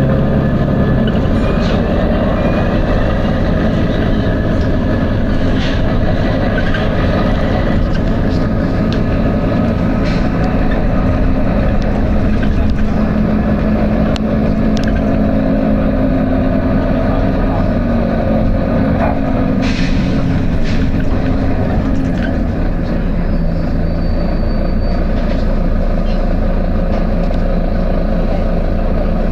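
Volvo B9TL double-decker bus's six-cylinder diesel engine running steadily with road noise, broken by a few short sharp sounds.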